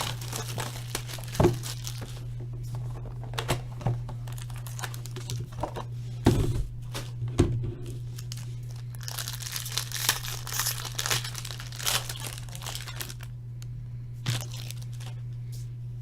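Baseball card packaging being torn open and crinkled by hand: wrapper tearing and crumpling with scattered handling knocks, busiest a little past the middle. A steady low hum runs underneath.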